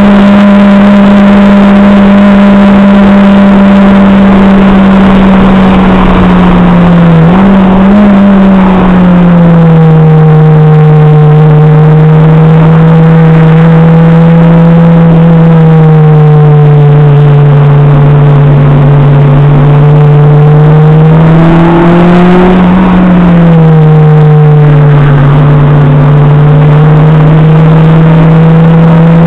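Acura RSX Type-S's K20A2 four-cylinder engine heard loud from inside the cabin, pulling hard at high revs on track. Its note holds steady, then drops in pitch about eight seconds in and again after a short rise a little past twenty seconds.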